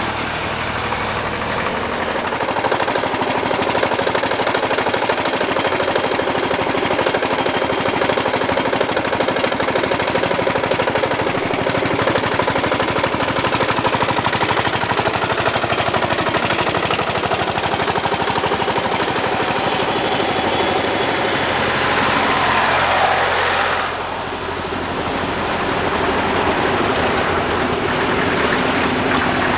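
Vintage vehicle engine running with a rapid, even train of popping exhaust beats. Near the end a falling pitch glides down and the sound eases off a little.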